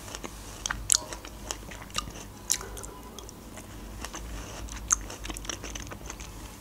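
Close-miked mouth sounds of a person chewing a forkful of soft layered cake with closed lips: irregular small clicks and smacks, the sharpest about one, two and a half, and five seconds in.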